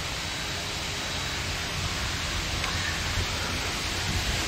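Steady, even hiss of background noise, with no distinct knocks, tones or rhythm.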